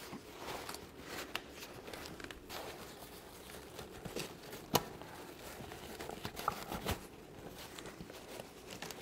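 Faint rustling and crinkling of fabric, with a few scattered soft taps, as a grid is worked onto the front of a fabric softbox on an LED light panel.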